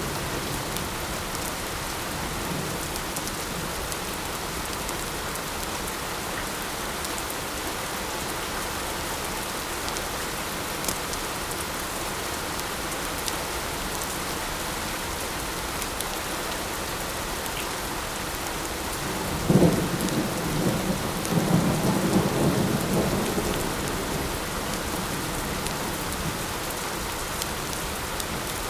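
Steady light rain falling, with a clap of thunder about two-thirds of the way through: a sudden crack followed by a low rumble that lasts a few seconds.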